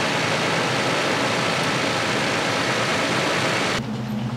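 Pickup truck engine idling under the open hood, a steady dense running noise, with the alternator charging the battery. The noise stops abruptly near the end, leaving a quieter low steady hum.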